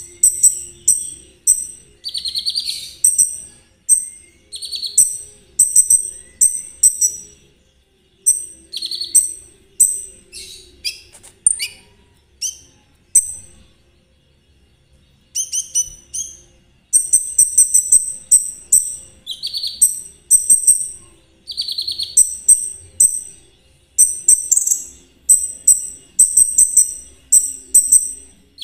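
A kolibri ninja sunbird (konin) sings its rapid 'trotol' song: short bursts of very high, jingling chirps repeated over and over, broken by lower buzzy trills. It pauses briefly about halfway through.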